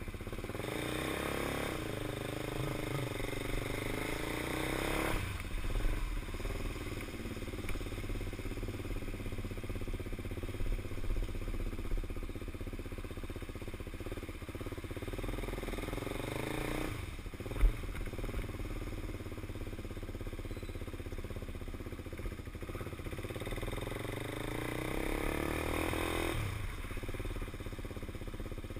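KTM 390 Duke's single-cylinder engine riding through the gears, its pitch climbing under acceleration until about five seconds in, again just before the middle, and near the end, each time dropping as the throttle closes. A single sharp knock comes about two-thirds of the way through.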